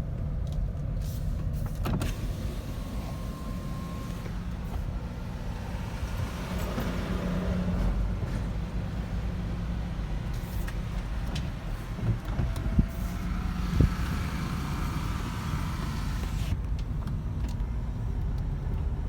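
Car interior noise while driving slowly: a steady low rumble of engine and tyres on the road, with a couple of short knocks about two thirds of the way through.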